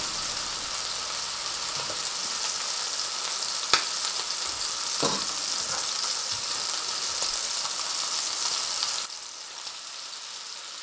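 Steady sizzling hiss of hot clarified butter in a frying pan, which drops quieter about nine seconds in. Two sharp knocks of a knife on a bamboo chopping board break through, a little before and a little after the middle.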